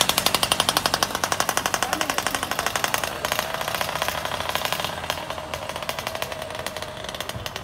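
Bicycle freewheel hub ratcheting in rapid, even clicks as a wheel spins freely, the clicking slowly fading away.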